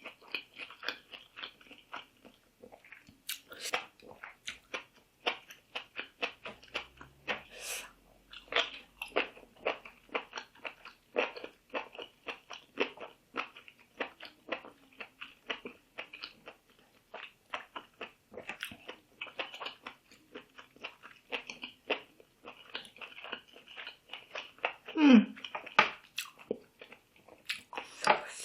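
A person chewing and biting seafood and fresh vegetables: a dense, irregular run of wet crunches and mouth clicks. Near the end comes one brief, louder vocal sound that falls in pitch.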